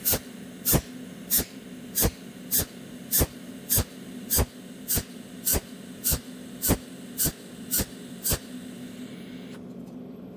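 Cold welding machine firing its electrode in a steady series of sharp snaps, about one every 0.6 seconds, fifteen in all. Each snap is one weld pulse laying down a dot in a bead of overlapping dots along a key's edge. A steady low hum runs underneath, and the snaps stop near the end.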